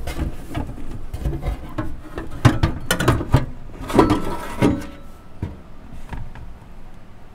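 Metal cabinet of a Heathkit IG-42 signal generator being slid off its chassis by hand: a run of knocks, scrapes and clunks, loudest in the middle, then quieter toward the end.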